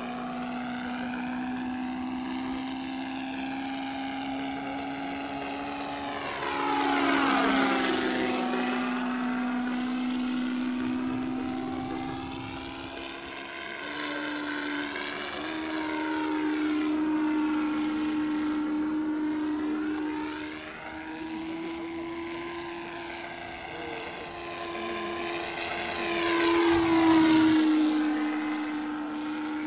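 Simulated Rolls-Royce Merlin V12 engine sound from a Benedini onboard sound system in a flying radio-controlled P-51 model. The speakers are overdriven and saturating, so the engine note is distorted. The sound swells as the model passes by, at about 7 seconds and again near the end, and the pitch steps up a little around the middle.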